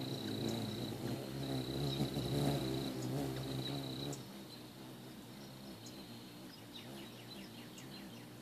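Ruby-throated hummingbirds' wings humming as they hover at a feeder, a low buzz that fades back about four seconds in. Near the end comes a quick run of short high chirps.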